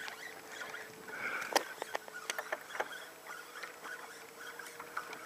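Small waves lapping against a boat hull, with scattered light clicks and a faint steady hum.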